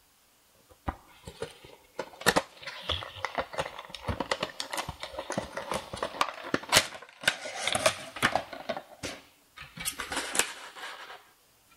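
Cardboard Funko Pop box being opened and its clear plastic insert slid out and handled: a quick run of sharp clicks with crinkling and scraping plastic and cardboard between them.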